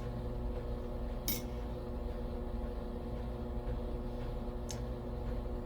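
Two light clicks of a nickel being handled and set down, about three and a half seconds apart, over a steady low hum.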